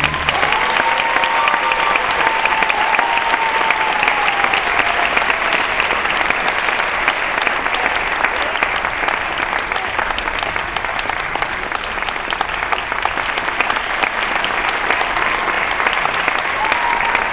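Theatre audience applauding, a steady dense patter of many hands clapping after the orchestral music ends.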